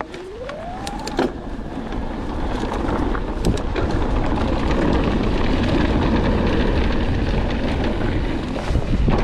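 Wind rushing over the microphone and mountain-bike tyres rolling on a dirt trail during a descent, with a deep rumble that builds over the first few seconds. A short rising tone sounds in the first second, and a few sharp knocks from bumps come through.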